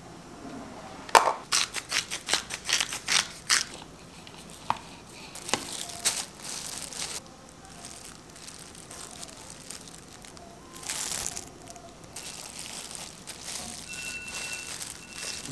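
A quick run of sharp plastic taps about a second in, as an upturned plastic container is knocked over a bowl to free cooked rice. Then thin plastic food-prep gloves crinkle and rustle while rice is handled and shaped into an onigiri.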